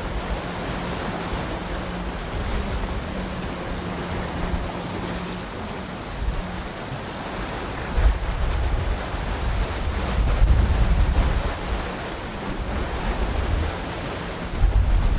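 Wind buffeting the microphone in gusts over a steady rush of sea and surf, with a faint steady hum in the first few seconds.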